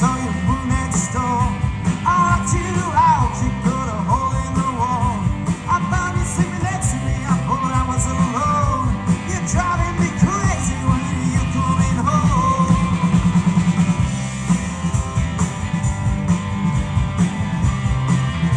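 A rock band playing live, with electric guitar, bass and drums, and a voice singing over the band.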